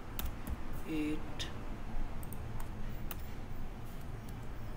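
Scattered clicks of a computer keyboard and mouse during equation editing, over a low steady background hum. A short tone with two steady pitches sounds once about a second in.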